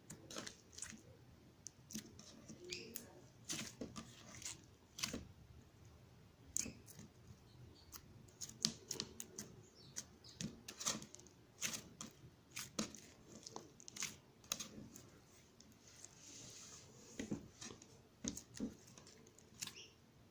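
Slime being squished and pressed by hand, giving irregular sticky clicks and small pops, about one or two a second, with a brief soft hiss near the end.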